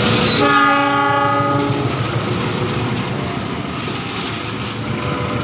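A train horn sounds one chord-like blast about half a second in, held for just over a second, over the steady running noise of the passing train.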